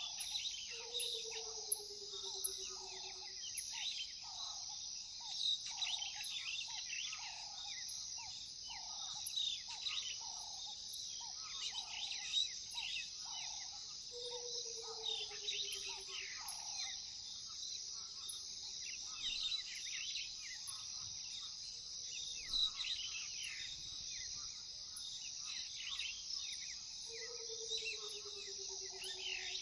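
Savanna chorus: a steady high trilling of crickets and other insects under many birds chirping and calling, with a low note repeating about once a second. Three times, roughly 13 seconds apart, a lower pulsing trill falls in pitch over about two and a half seconds.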